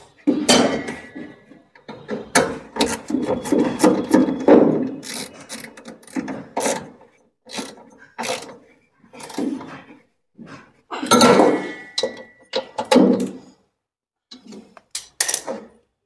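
A 13 mm spanner working the drive-motor mounting bolt under a top-load washing machine, shifting the motor to re-tension its slack drive belt: bursts of metallic clicks, scrapes and clanks, with a brief ringing clink near the start and again about eleven seconds in.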